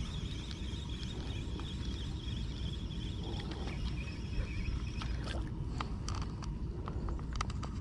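Spinning fishing reel being wound in over a steady low rumble, then a run of small clicks and knocks from about five seconds in as the line and sinker are handled.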